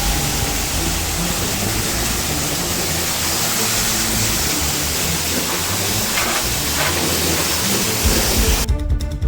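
High-pressure washer spraying, a loud steady hiss of the water jet from the trigger lance, which cuts off abruptly near the end. Music plays underneath.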